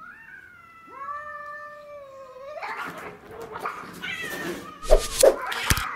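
Two domestic cats fighting. Drawn-out yowling for about two and a half seconds breaks into a scuffle with hissing and several sharp, loud bursts near the end.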